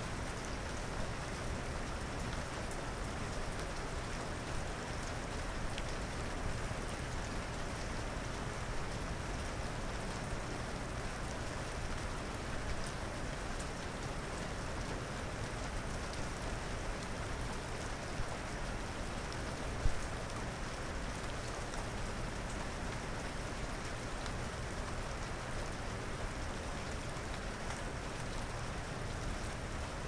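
Steady rain falling, an even hiss without let-up, with one brief louder tick about two-thirds of the way through.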